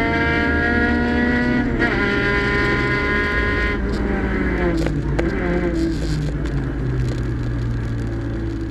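Hill-climb race car's engine heard from inside the cabin, running at low revs while the car rolls slowly, its pitch falling gradually with a couple of breaks in the note. Two sharp clicks about five seconds in.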